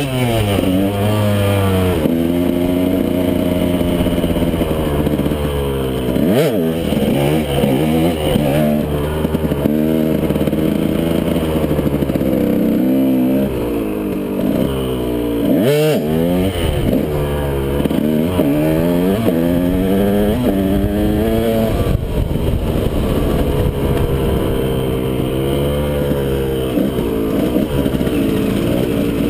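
KTM 125 SX two-stroke single-cylinder dirt bike engine revving up and down as it is ridden, its pitch rising and falling over and over. Twice, about six seconds in and again near the middle, the revs drop sharply and climb straight back.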